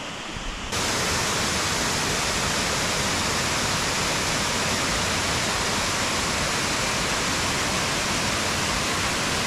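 Waterfall: a steady rush of falling water, loud and unchanging, starting suddenly under a second in.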